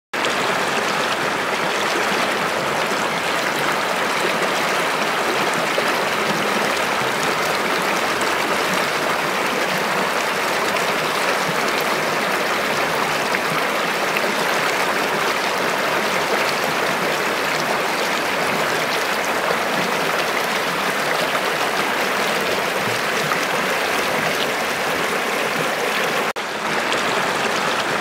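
Stream water rushing and splashing over rocks, a steady rush with no let-up; it drops out for an instant near the end, then goes on.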